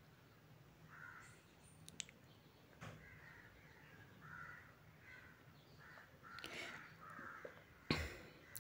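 Near silence with a faint outdoor hum and a few faint, short distant calls scattered through it. A brief burst of noise near the end is the loudest thing.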